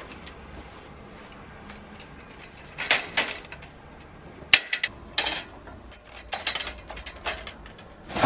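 Scattered sharp clacks and knocks from a folding clothes drying rack being handled and its bars set in place, a few at a time over several seconds, with a louder knock near the end.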